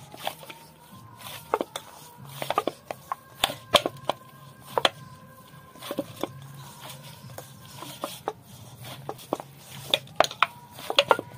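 Hands working a lump of dough on a wooden board or in a bowl, making irregular taps and knocks over a low steady hum.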